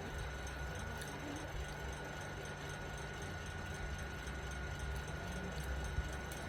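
Steady low hum like an idling engine or running machine, with a faint steady high whine above it and one short click near the end.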